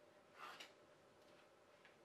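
Near-silent room tone with one brief soft scrape of hands handling the solder reel and soldering tools on the bench, about half a second in, followed by a few faint ticks.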